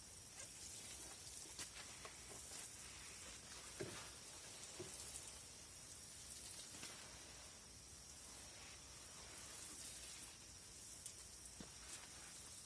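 Water sprinkling from a plastic watering can onto leaves and soil: a faint, steady hiss with a few light knocks.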